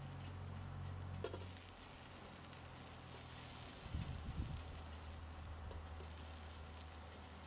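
Chicken tikka pieces on metal skewers sizzling faintly as they grill on a wire rack over an electric ceramic cooktop, over a steady low hum. A sharp click comes about a second in, and a few soft knocks about four seconds in.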